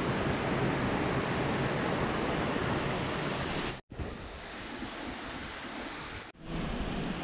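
Steady rush of falling water from a waterfall, broken twice by abrupt cuts, with the middle stretch a little quieter.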